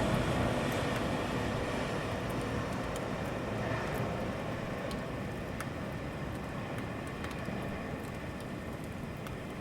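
Rainy city ambience: steady rain with scattered drop ticks under a low rumble that slowly dies away.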